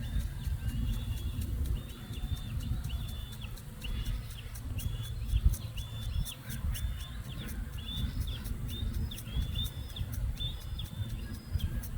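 A small bird chirping the same short call over and over, about one and a half times a second, over a low rumble.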